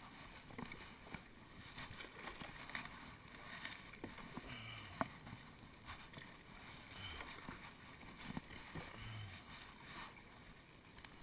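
Double-bladed kayak paddle dipping and splashing in shallow water as a plastic sit-on-top kayak is paddled along, with a few light knocks.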